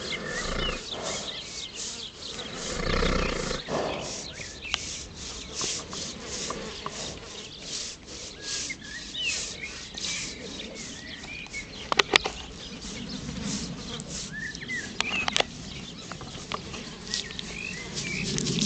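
Hand scratching a horse's coat in a steady rhythm, about three strokes a second, while the horse gives a long snort of pleasure about two seconds in.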